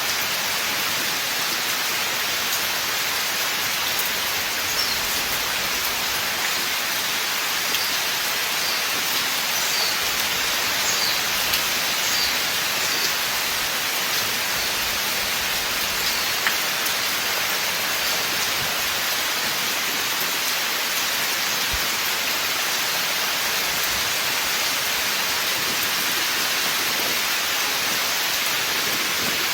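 Steady rain falling on a forest, an even, unbroken hiss of drops on leaves and ground.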